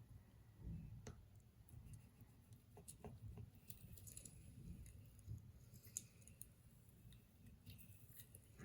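Faint scratching of a knife blade stroked across a fine, high-grit sharpening stone, with scattered light clicks. The stone is very quiet at this polishing stage.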